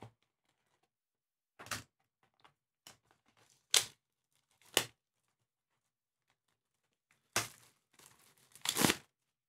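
A trading card box being opened by hand, its packaging tearing and crackling. There are four short, sharp tears or snaps about a second apart, then a longer burst of tearing and crinkling near the end.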